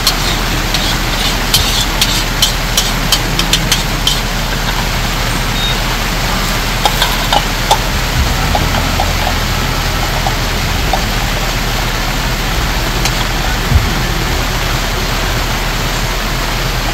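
Steady rain falling, an even hiss, with a quick run of sharp ticks of water dripping, about two to three a second, through the first few seconds.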